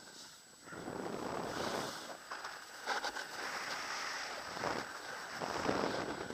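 Wind rushing over the microphone of a camera moving down a ski slope, mixed with skis hissing and scraping on packed snow; the rush swells and eases in surges as the skier turns.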